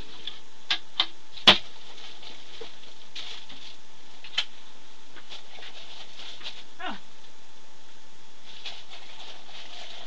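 A few sharp knocks and clicks of things being handled and set down on a worktable, the loudest about one and a half seconds in, over a steady hiss. A short falling squeak comes about seven seconds in.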